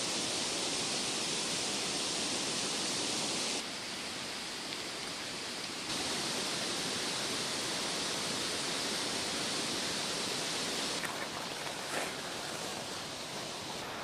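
Steady rushing of river water, an even hiss with no speech or music. The noise drops abruptly about three and a half seconds in and returns about six seconds in, with a couple of faint clicks near the end.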